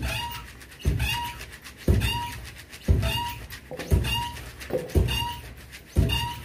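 Dheki, the foot-operated wooden rice-pounding lever, pounding soaked rice into flour. Its pestle drops into the mortar with a heavy thud about once a second, and each stroke is followed by a short high squeak.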